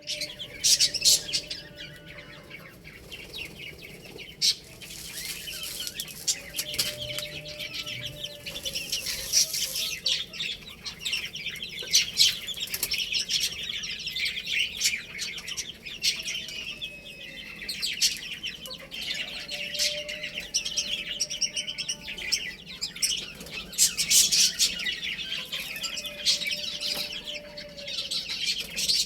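Baby chicks peeping continuously, many high chirps overlapping, with a few lower drawn-out calls and scattered sharp clicks now and then.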